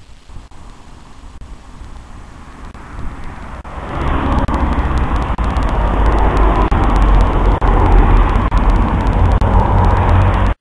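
A small city car driving past on a street: road and engine noise. It comes up sharply about four seconds in as a loud, steady rumble and cuts off abruptly at the end.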